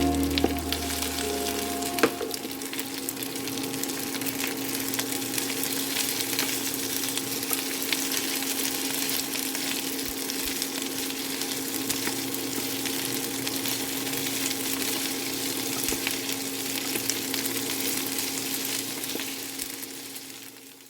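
Food sizzling steadily as it fries in a pan, fading away near the end.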